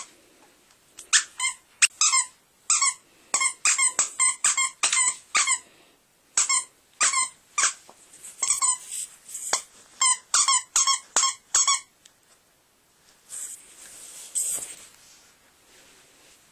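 Dog's squeaky toy squeaking over and over as a small dog bites on it: about twenty short squeaks in quick runs, then a couple of seconds of softer noise without squeaks near the end.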